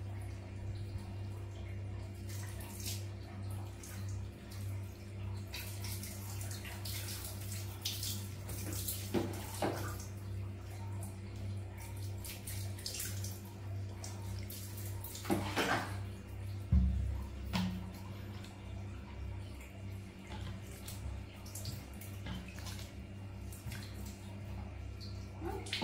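Water poured from a plastic scoop splashing over a baby monkey and running off, in short splashes every few seconds over a steady low hum.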